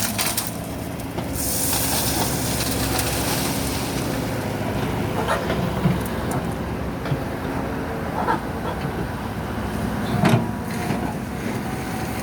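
Heavy vehicle's engine running steadily, with a hiss in the first second and a few short knocks in the middle.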